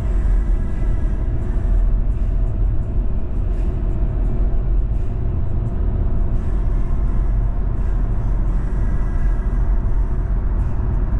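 Steady low rumble of road and engine noise heard from inside a car cruising at highway speed.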